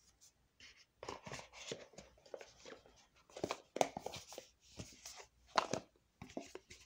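Soft, irregular rustling and tapping of oracle cards and small objects being handled on a cloth-covered table.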